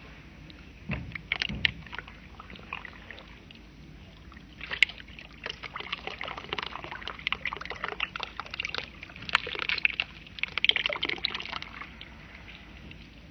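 Water poured from a cup into a plastic tub of soil, splashing and trickling irregularly into a muddy pool: a short spurt about a second in, then a longer pour from about five seconds in until near the end.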